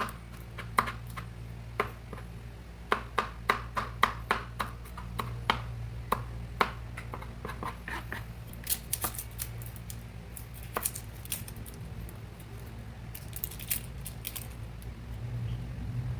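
Kitchen utensils clicking and tapping irregularly, with a few short scraping sounds in the second half, over a steady low hum.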